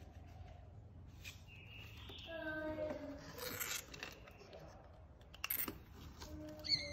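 Light rustling and plastic clicking as a small monkey handles a plastic hamster cage, with a sharp click about five and a half seconds in. A short faint voice sounds about two seconds in.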